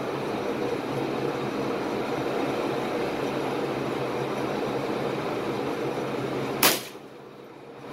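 A single .22 LR rifle shot, a sharp crack near the end, over a steady background hum that drops away right after the shot.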